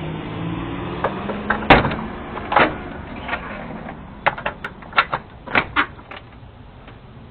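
A car engine running and fading away as the car drives off, then a string of sharp clicks and knocks, the loudest about two seconds in, picked up through a doorbell camera's microphone.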